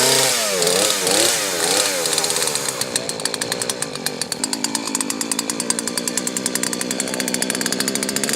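Two-stroke gas chainsaw revving up and down several times, then settling to a steady, lower run with a rapid pulsing beat.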